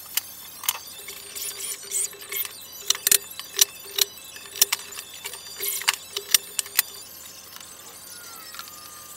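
Cordless drill driving screws into a plywood cabinet in a run of short bursts, with sharp clicks and knocks in between. The drilling stops about seven seconds in.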